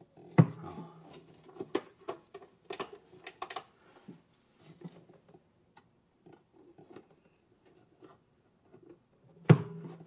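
Scattered sharp clicks and taps of gloved hands handling multimeter test leads and clips at a golf cart's solenoid terminals, loudest in the first few seconds and fainter after. A steady low hum comes in near the end.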